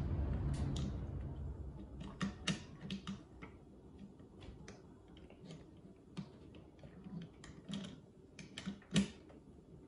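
Small plastic parts of a toy spider-robot kit clicking and tapping together as the legs are fitted onto the robot's body: scattered light clicks at an uneven pace, the loudest about nine seconds in.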